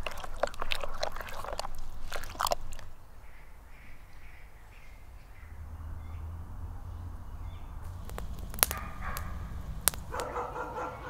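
A spoon stirring a creamy salad of chopped greens, with wet clicking and squishing for the first two to three seconds. After that the surroundings are quiet, with two sharp clicks and animal calls near the end.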